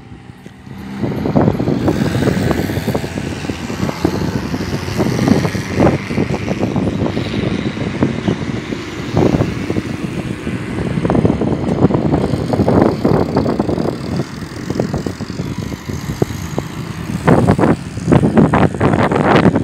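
Cars passing on a highway, heard through gusty wind rumbling and buffeting on a phone microphone.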